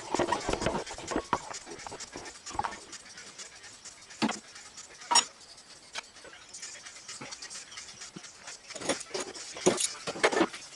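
Irregular clinks and knocks of hand tools and metal parts being handled during engine assembly, with a sharp knock about five seconds in and a flurry of clatter near the end.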